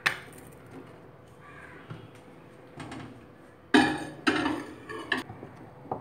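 A flat spatula knocking and scraping against a glass baking dish while stirring thick kesari. There is a sharp knock at the start, then a cluster of loud clattering scrapes about two thirds in.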